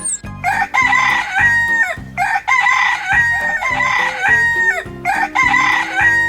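Rooster crowing, several loud drawn-out calls in a row, over upbeat background music.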